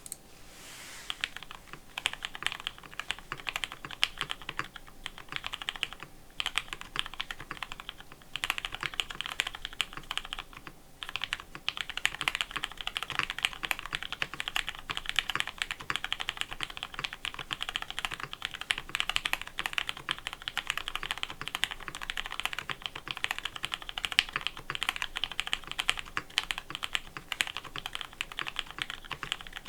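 Continuous typing on a Geon Frog custom mechanical keyboard with lubed, filmed L+F Hyperglide Black linear switches, an aluminum plate with plate and case foam, and PBT keycaps. A dense, steady stream of keystrokes, with brief pauses about 6 and 11 seconds in.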